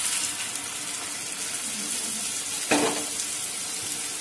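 Hot water poured into a kadai of frying spiced potatoes, the oil hissing and sizzling, then a spatula stirring the potatoes in the pan. A single sharp knock about two and a half seconds in.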